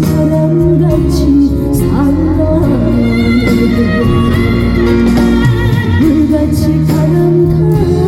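Trot song performed live through a PA: a woman singing a melody with vibrato over a band backing track with a steady bass.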